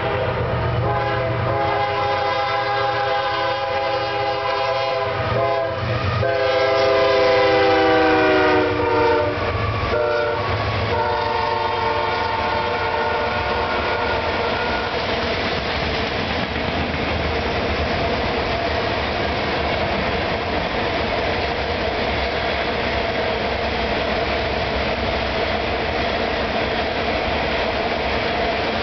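CSX freight locomotive's multi-chime air horn sounding several long blasts, loudest and dropping in pitch as the engines pass. After that the coal hopper cars roll by with a steady rumble and clatter of wheels on rail.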